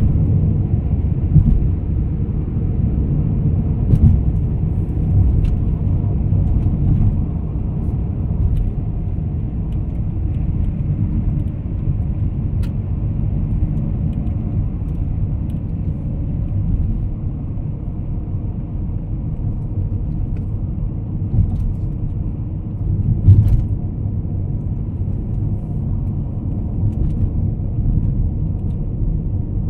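Car cabin noise while driving: a steady low rumble of tyres and engine heard from inside the car, with a few brief thumps, the loudest about 23 seconds in.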